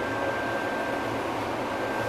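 Interior running noise of a Škoda ForCity Smart Artic low-floor tram moving along its track: a steady hum and hiss with a thin, steady high whine over it.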